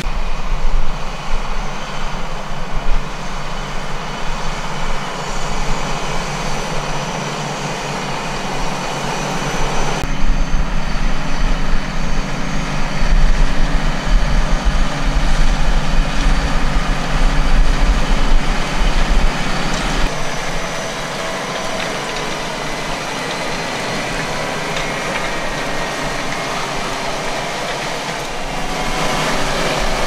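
John Deere 8370R tractor's six-cylinder diesel running steadily under load as it pulls a 6 m Claydon Hybrid seed drill, with the drill's tines and wheels working through the soil. The level and tone change abruptly a few times as the recording shifts between takes.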